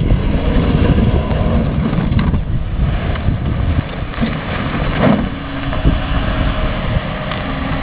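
Nissan Frontier pickup truck driving through mud, its engine running with a dense low rumble and a brief louder burst about five seconds in.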